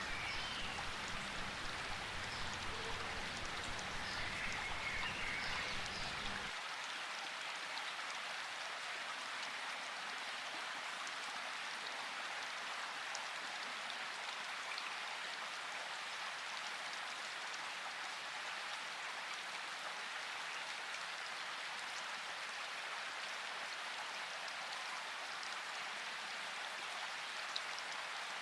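Steady rain falling in a forest, an even hiss, with a few faint bird chirps in the first few seconds. A low background sound underneath stops abruptly about six seconds in.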